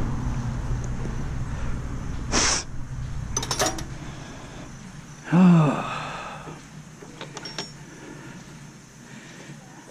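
Low rumble of a vehicle fading out over the first few seconds, a short hiss, and a few light metallic clicks of small parts. About five seconds in comes the loudest sound, a short wordless vocal sound like a sigh or gasp.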